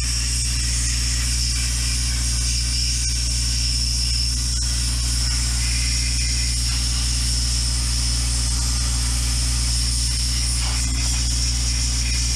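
Air compressor running steadily with a constant high hiss of compressed air, feeding a small handheld sandblasting gun.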